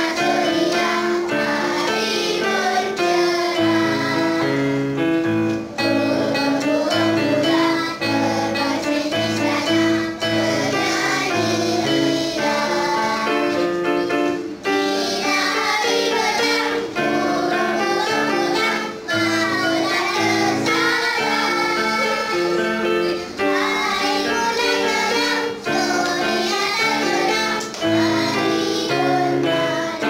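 A group of children singing together to an electronic keyboard accompaniment that plays a bass line and chords.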